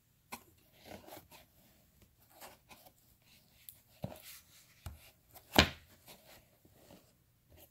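Hands handling a cardboard box with foam packing and a cloth drawstring pouch: scattered rustling and light knocks, with one sharper knock about five and a half seconds in.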